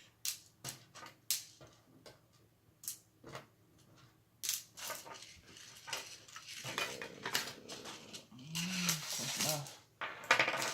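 Irregular light clicks and taps of small screws and plastic remote-control parts being handled and set down. Near the end there is a busier rustling stretch with a short low hum-like voice sound.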